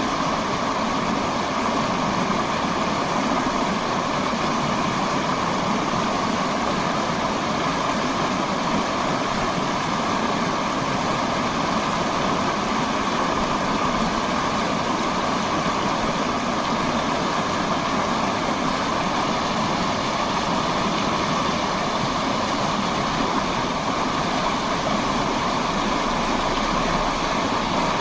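Steady, even rushing noise of city ambience, with no distinct sounds standing out.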